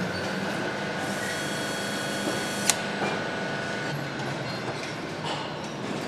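Steady factory-floor machinery din on a motorcycle engine assembly line, with a faint high whine for a couple of seconds and a single sharp click about halfway through.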